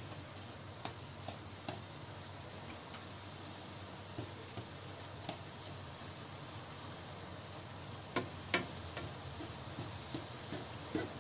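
Ground beef sizzling with a steady hiss in a frying pan while a slotted spatula stirs it, scraping and tapping against the pan. A few louder taps come about eight seconds in.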